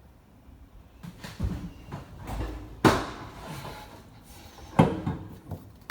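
Hands working with plumbing parts: a few sharp knocks and rattles, the loudest about three seconds in and again near the end.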